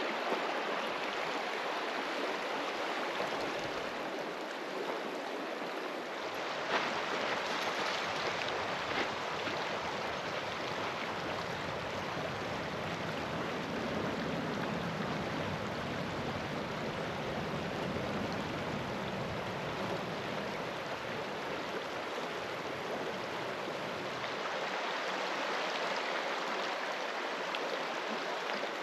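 Shallow mountain river flowing over rocks and riffles, a steady rush of water. A low rumble joins for much of the middle.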